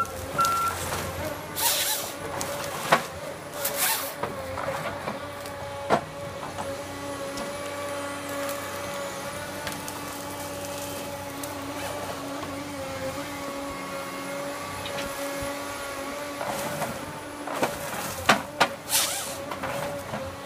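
Eltec 227 tracked harvester's Cummins diesel engine running steadily while its Logmax 7000 harvester head works, with sharp knocks and short hissing bursts a few seconds in and a cluster of them near the end.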